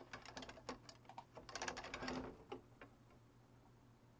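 A quick run of light clicks and taps at a computer's mouse and keyboard, bunched in the first two and a half seconds, then a few stray clicks.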